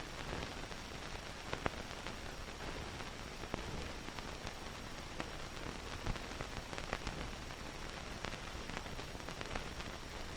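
Steady hiss with scattered faint clicks and pops: the background noise of an old film soundtrack.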